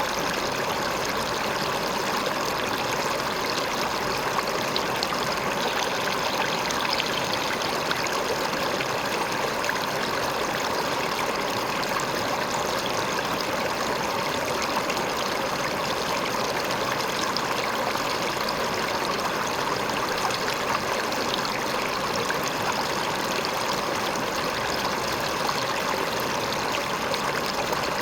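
River water flowing and splashing over a rock, a steady rushing with a fine trickling texture.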